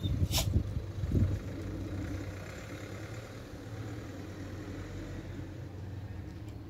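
A steady low engine-like hum, with irregular low rumbles in the first second or so and one sharp click just after the start.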